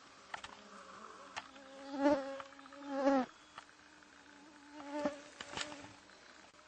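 Flying insects buzzing close past the microphone, each buzz swelling and bending in pitch as it passes, loudest about two and three seconds in and again around five seconds. A few faint clicks in between.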